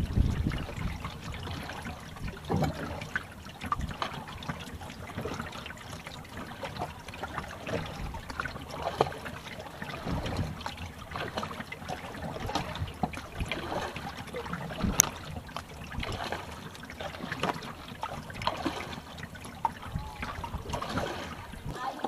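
Kayak paddle strokes in river water: the blades dipping in and water trickling and dripping off them in an irregular patter, with a few low rumbles.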